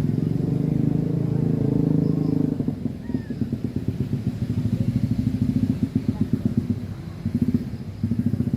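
A small engine running with a rapid, even pulsing beat, easing off briefly about three seconds in and again near the end.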